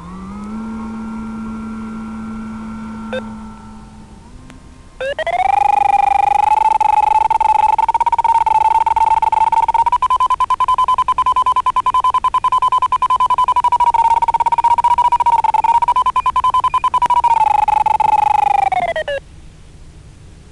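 An Arduino-based KK sailplane variometer's climb tone, received over a 433 MHz FM audio link and played through a handheld UHF transceiver. About five seconds in, fast beeping starts at around 800 Hz to 1 kHz. It steps a little higher in pitch, then falls and stops a second or so before the end, tracking the glider's rate of climb. Before the beeping there is a steadier, lower tone.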